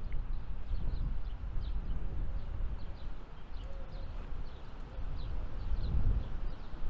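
Wind rumbling on the microphone, with small birds giving short, falling chirps many times in the background.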